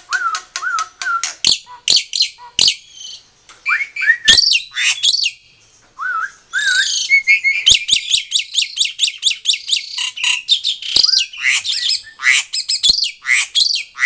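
Black-winged myna (jalak putih) in full song: loud, fast strings of varied sharp whistles, chattering notes and harsh rasping calls, with a short pause about halfway through.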